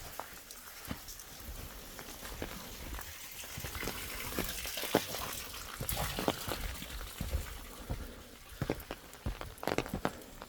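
Footsteps walking along a forest path, as irregular knocks that grow thicker near the end. A rushing noise swells in the middle and fades again.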